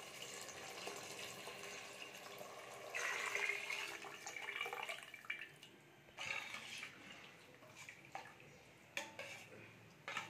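Water poured in a stream into a steel pressure cooker of rice and masala, a steady splashing pour that grows louder for a moment and stops after about five seconds. A few short knocks follow in the pot.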